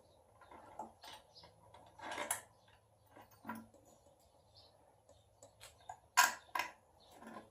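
Scattered metal clinks and knocks of hand tools and engine parts as a component is fitted onto a 5.7L HEMI V8 engine, with two sharper knocks close together about six seconds in.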